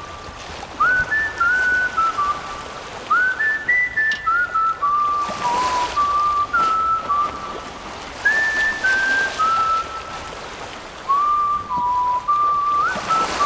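A tune whistled by a person, in short phrases of stepped notes, some sliding up into pitch, over faint accompaniment.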